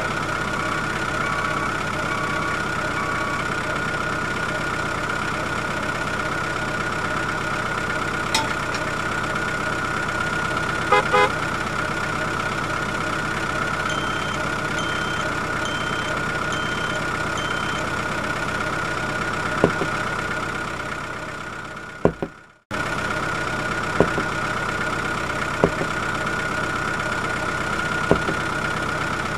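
Steady vehicle engine idling drone with a strong high whine; it fades out about three quarters of the way through, stops briefly, and starts again abruptly. Two short runs of beeps, near the start and around the middle, and a few light knocks near the end as toy bricks are set on a trailer.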